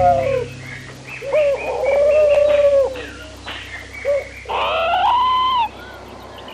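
Bird calls: long held notes that drop at the end, one right at the start and another about a second and a half in, then a higher call about four and a half seconds in that stops suddenly. Short higher chirps come in between, over a steady low hum.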